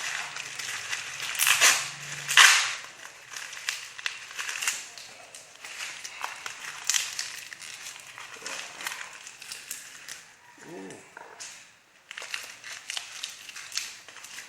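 A shipping package being opened by hand: irregular crackling, scraping and tearing of packaging with many sharp clicks, and two louder rips about one and a half and two and a half seconds in.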